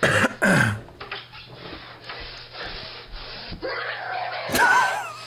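A teenage boy screaming and yelling in a tantrum, with loud outbursts at the start and again near the end, heard through the played-back video's audio.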